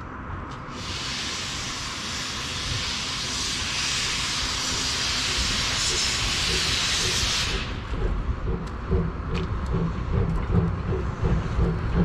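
Steam locomotive C58 363 releasing a loud, steady hiss of steam that starts about a second in and cuts off about eight seconds in, followed by a quick rhythmic beating of about three pulses a second.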